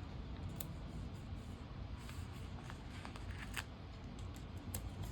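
Paper sticker sheets being handled, with light rustles and small crisp ticks as stickers are worked loose and placed, over a low steady hum.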